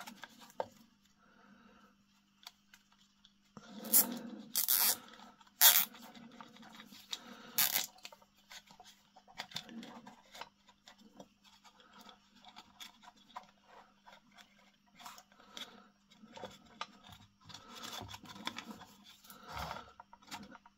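A nylon cable tie being worked around a lamp's electrical cable and pulled tight against a wooden base: scraping and handling noises, with a few short, sharp rasps between about four and eight seconds in.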